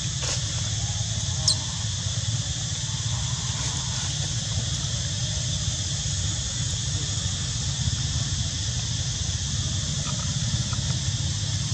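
Steady outdoor background noise: a low rumble under an even hiss. A single brief, high squeak falls in pitch about one and a half seconds in.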